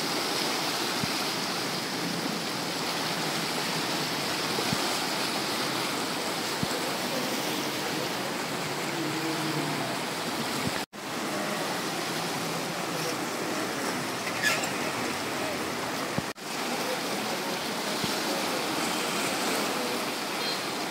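Fast-flowing muddy floodwater rushing and churning, a steady continuous roar of turbulent water, broken twice by brief dropouts.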